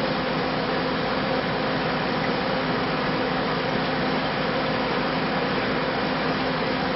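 Steady mechanical hum with an even rushing hiss from running aquarium equipment such as pumps and filtration.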